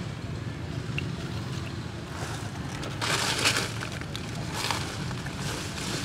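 Dry leaves crackling and rustling in short bursts as a baby macaque moves through leaf litter, loudest about three seconds in, over a steady low hum.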